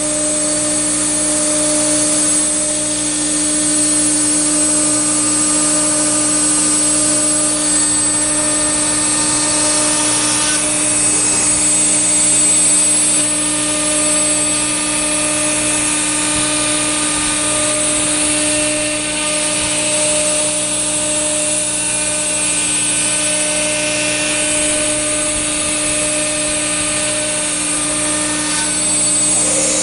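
CNC router spindle running at a steady whine while it cuts acrylic sheet, with a constant hiss from the cutting over the tone.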